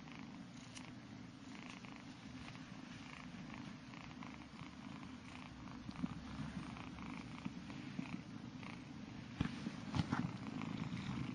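Ginger Scottish Fold kitten purring steadily, with a few sharp knocks about nine to ten seconds in as it pushes up against the camera.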